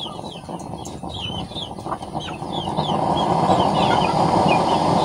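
Homemade blower-fed burner, a half-inch burner in a 4-inch chamber driven by a 5-volt blower, running with a steady rushing flame noise that grows louder from about two seconds in as the blower is turned up. Repeated short high chirps from fowl sound over it.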